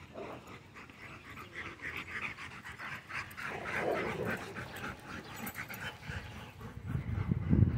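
A dog panting rapidly in quick short breaths. Near the end there is a louder low rumbling.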